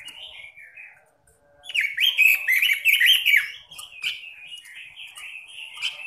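Red-billed leiothrix (Pekin robin) singing: soft warbling phrases, a short pause about a second in, then a loud, rapid burst of song lasting about two seconds, then softer warbling again.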